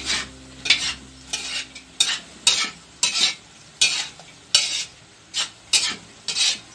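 A spatula scraping and tossing sautéing vegetables in a wok, over a low sizzle. There are about a dozen quick scrapes, roughly one every half second.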